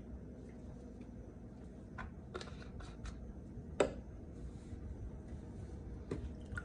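A few scattered small clicks and taps from handling a hair-dye bottle and a foil pan, with one sharper knock about four seconds in.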